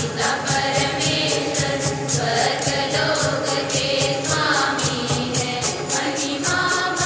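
A church congregation singing a hymn during Mass, with percussion keeping a quick, steady beat under the melody.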